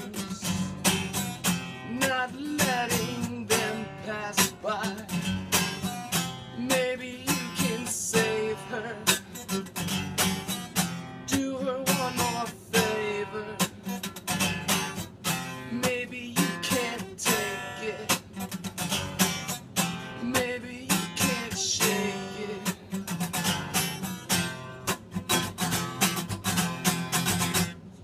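Acoustic guitar strummed live in a steady rhythm.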